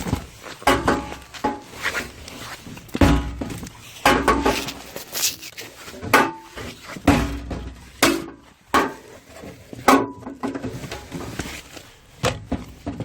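Handling noise: irregular knocks, clacks and rustling as won plush toys are taken out of a claw machine's prize chute and packed into a bag, with wind buffeting the microphone in low rumbles.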